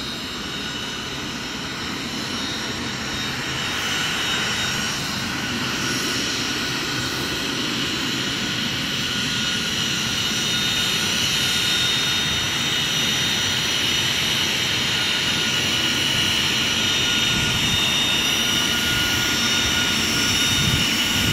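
Embraer 175 regional jet's twin turbofan engines at takeoff power: a steady roar with a high-pitched fan whine, gradually growing louder.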